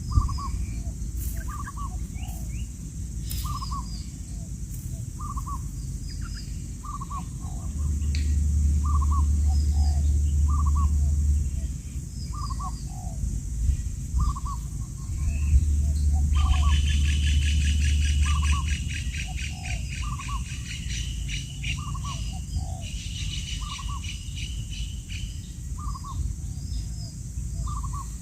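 Birds calling: a short note repeated about once a second throughout, and twice a fast, high trill lasting two to three seconds. A low rumble swells up twice underneath.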